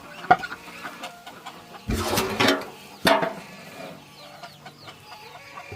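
Chickens clucking, with a sharp knock about a third of a second in and louder bursts around two and three seconds in.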